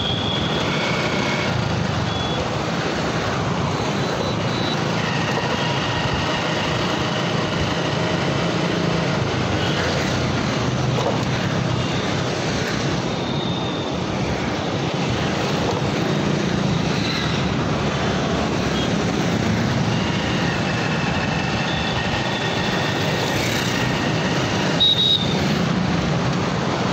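Motorcycle being ridden through street traffic: a steady engine and road noise that holds level throughout, with faint higher tones coming and going.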